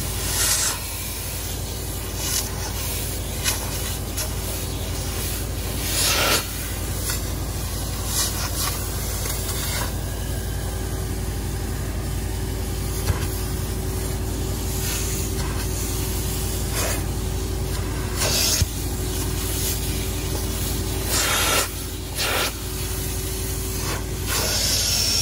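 Carpet extractor running steadily as its clear upholstery tool is drawn across a cloth car seat, sucking up dirty water with a rasping rub. Several brief, louder hisses of spray come through.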